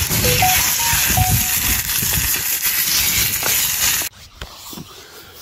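Food sizzling in a small frying pan held over an open wood fire: a loud, steady hiss that cuts off abruptly about four seconds in.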